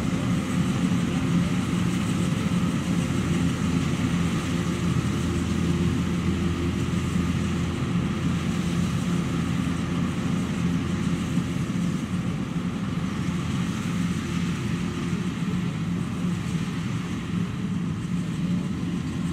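Combine harvester running steadily, a low even engine drone with the constant noise of its harvesting machinery over it.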